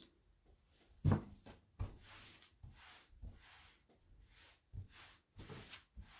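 Craft materials handled on a tabletop: a knock about a second in, then rustling and rubbing with a few lighter taps.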